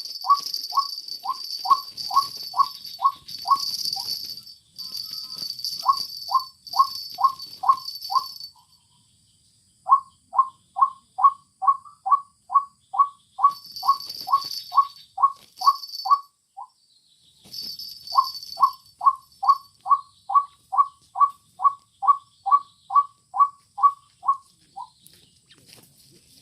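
White-breasted waterhen calling: long runs of evenly repeated two-part notes, nearly three a second, broken by short pauses. Insects buzz in high-pitched bursts underneath.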